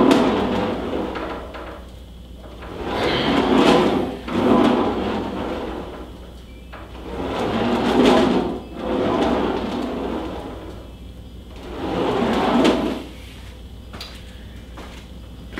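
Ab wheel rolling along an inclined wooden plank, out and back, in a few rollout repetitions. Each pass is a rising and falling rolling rumble about a second long, with short pauses between them, then it stops a couple of seconds before the end.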